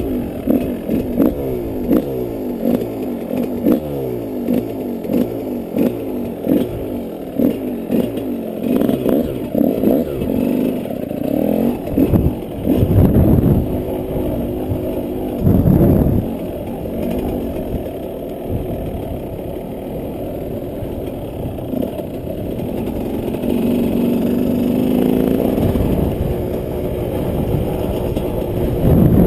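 Yamaha 125 off-road motorcycle engine being ridden. Its pitch climbs and drops again and again through the first third, with clatter. Two loud surges come around the middle, then it runs more steadily at lower revs.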